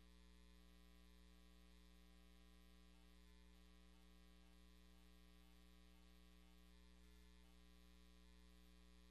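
Near silence with a faint steady electrical mains hum.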